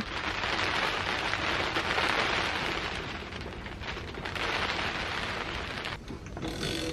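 Steady rain falling, an even hiss. Near the end, a few quick clicks from a socket ratchet turning a nut.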